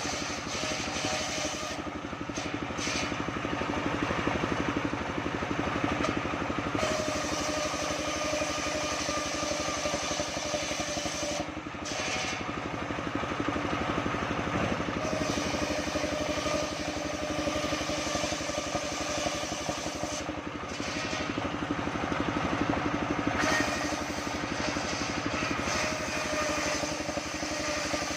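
Engine-driven band sawmill running steadily, its motor giving a constant hum. The sound grows louder and brighter for a few seconds at a time and then eases back, several times over.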